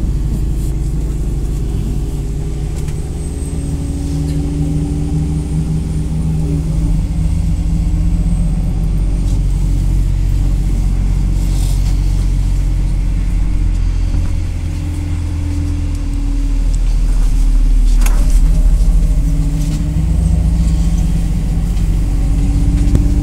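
MAZ 203 city bus driving, heard from inside: the engine hum rises and falls with speed, its pitch dropping about seven seconds in, with one sharp knock about three-quarters of the way through.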